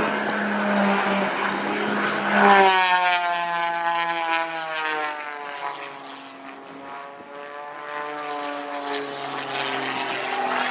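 Aerobatic race plane's propeller engine running at full power. A steady drone turns into a loud buzzing whine about two and a half seconds in; the whine falls in pitch and fades as the plane climbs away, then rises again near the end as it dives back.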